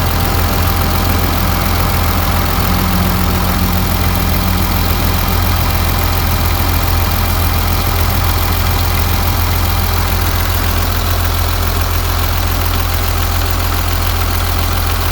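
Ural truck's diesel engine idling steadily.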